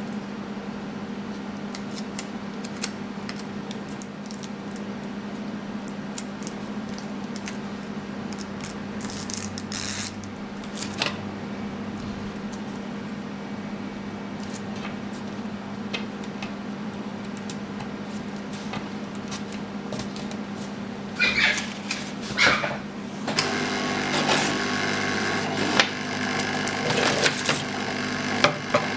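Light handling noises, small clicks and rustles, as clear photoresist dry film is laid and pressed onto a small copper-clad board by hand, over a steady low hum. About three-quarters of the way through, a hot air soldering station's blower comes on and runs, a louder steady rush of air.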